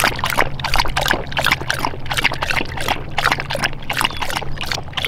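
Livestock guardian dog lapping water from a rubber tub: an even run of wet, splashy laps, about three a second.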